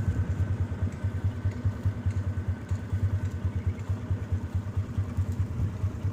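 Motorcycle engine idling with a steady, fast, even throb.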